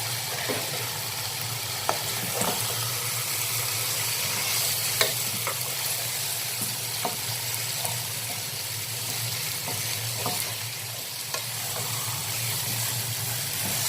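Chicken pieces frying in an onion-tomato masala in a pot, sizzling steadily, with scattered clicks and scrapes of a spoon stirring and turning them.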